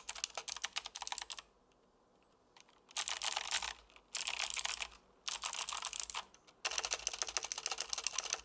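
Typing on a Logitech G Pro X mechanical keyboard with clicky blue switches: rapid runs of sharp clicks in several bursts, with a quiet pause of about a second and a half near the start.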